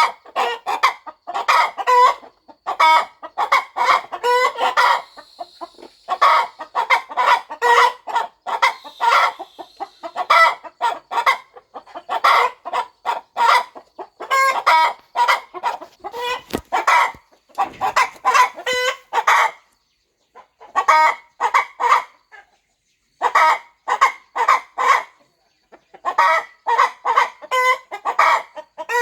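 Broody hen clucking: quick runs of short calls lasting a few seconds each, separated by brief pauses.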